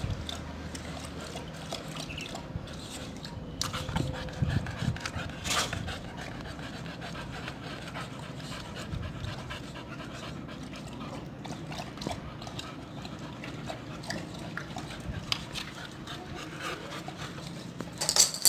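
Boxer dogs panting, while a boxer puppy laps water from a plastic bowl with irregular light wet clicks.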